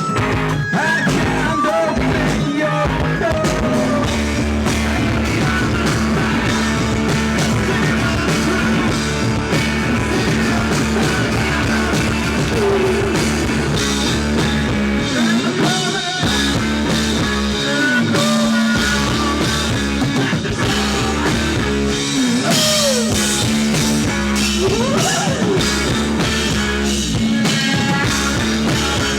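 Rock band playing live: drum kit, bass and guitars, loud and unbroken, with a low note held for long stretches and lead lines that slide up and down in pitch.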